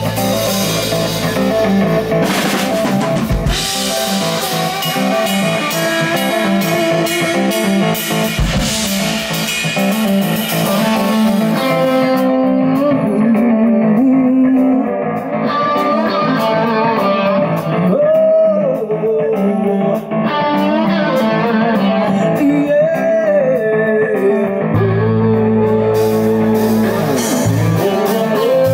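Live blues-rock band playing an instrumental passage: electric guitar over drum kit and bass guitar. About twelve seconds in, the cymbals drop out and the guitar plays bending lead notes over lighter backing. The full band comes back in near the end.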